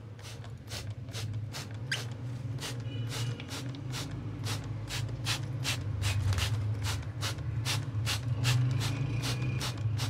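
Hand trigger spray bottle misting water in quick repeated squirts, about three a second, each a short hiss, over a steady low hum. The water is sprayed onto eggs due to hatch, to soften the shells.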